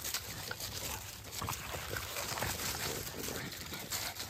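French bulldog and pit bull puppies scuffling and playing through dry fallen leaves on grass: leaves rustling and crackling under their paws, with a few short dog vocal sounds.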